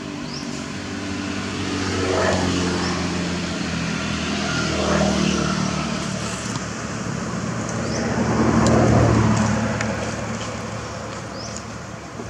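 Road traffic passing by: engine hum that swells and fades three times, loudest near the end of the third pass, with faint short high chirps above it.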